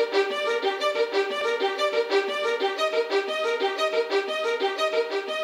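Background music: a quick, steady pulse of short, repeated pitched notes.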